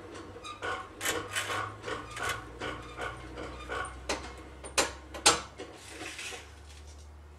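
Boat trailer's front jack being cranked: an uneven run of clicks and scrapes about three a second, with two sharp clicks about five seconds in, over a low steady hum.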